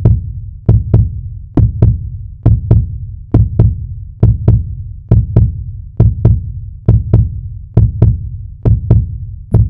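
A heartbeat sound effect: loud, even lub-dub double thumps, deep and low, a bit over once a second.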